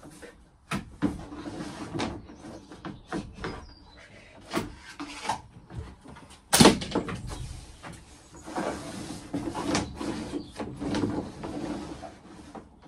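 Thick solar cable being pushed and pulled through the gap above a ceiling panel: irregular scraping and rustling with knocks of cable against panel, the loudest a sharp knock about six and a half seconds in.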